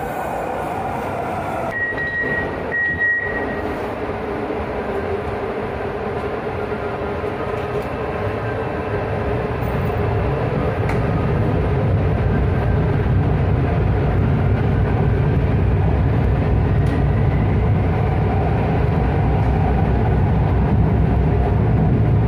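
Hyundai Rotem driverless metro train running on elevated track: a steady rail rumble with a low hum that grows louder from about eight seconds in. Two short high beeps sound about two seconds in.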